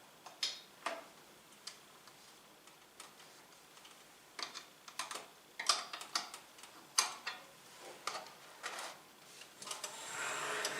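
Irregular light clicks and taps of hard computer parts being handled and fitted inside a desktop case, with a rustling, scraping swell near the end.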